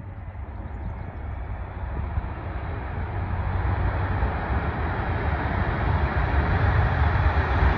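Antonov An-124's four turbofan engines at high power on the takeoff roll: a deep rumble under a broad roar, growing steadily louder as the jet comes down the runway.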